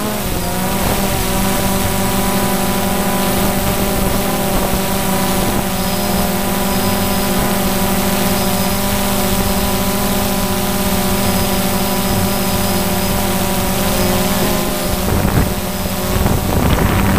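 Multirotor drone's motors and propellers humming steadily as it hovers, heard from the camera on board. The pitch wavers briefly at the start and shifts again about fifteen seconds in.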